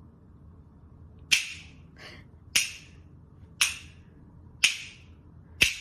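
Five sharp clicks about a second apart, each dying away quickly.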